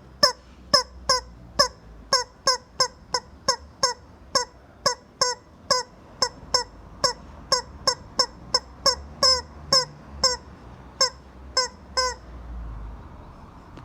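Rubber chicken toy squeezed over and over, giving short honking squeaks about three a second, each dipping slightly in pitch. The squeaks stop for about a second and a half near the end.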